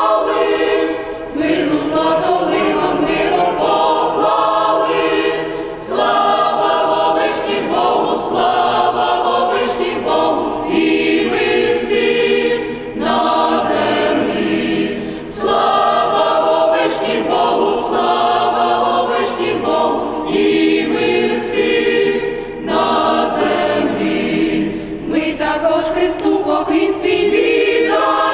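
Mixed choir of women's and men's voices singing a cappella, in phrases a few seconds long with brief breaks between them.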